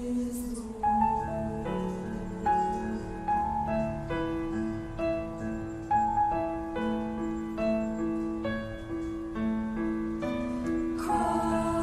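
Piano playing a slow, gentle melody, one new note roughly every second over held lower notes. A fuller sound comes in near the end.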